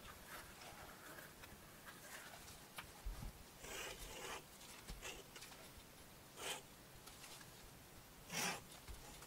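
Hand knife drawn through leather along a paper template, making faint scraping cuts: a longer stroke about four seconds in, a short one later, and the loudest near the end.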